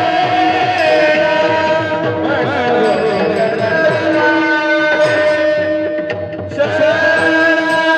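Devotional kirtan music: a harmonium holds steady chords over a hand drum's regular rhythm, with light cymbal ticks on top. The music thins out briefly about six and a half seconds in, then comes back in full.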